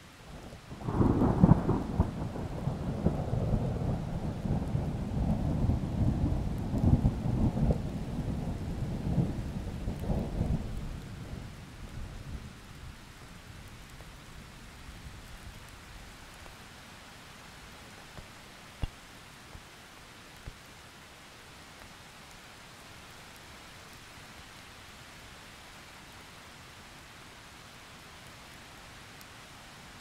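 Thunder cracks about a second in, then rolls and rumbles deep and loud for some ten seconds before dying away, over a steady hiss of rain. A few faint clicks come later.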